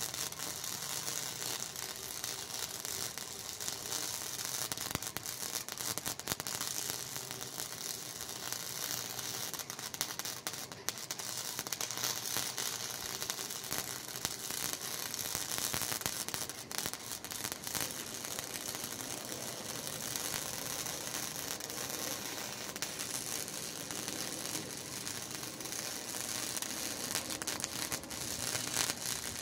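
Wire-feed welder's arc crackling steadily as a bead is run along a steel joint.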